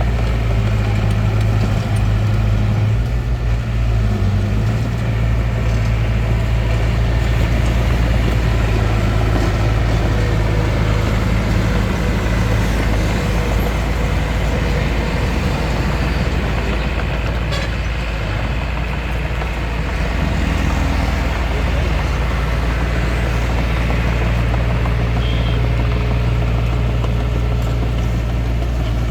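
Engine of a Hitachi DX45M bulldozer running steadily while it works, easing off slightly about two-thirds of the way through.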